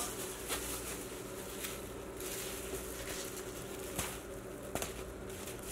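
Faint crinkling of a thin plastic bag as hands press it and twist its neck closed, with a few soft crackles scattered through.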